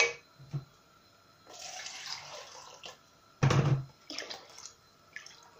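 Water poured from a glass into a pot of yogurt and gram-flour kadhi mixture: a splashing pour lasting about a second and a half. A little past halfway comes a loud knock, followed by a few light taps.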